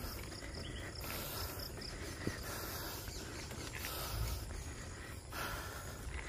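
Outdoor ambience: a steady hiss with insects calling faintly, and a single sharp click a little over two seconds in.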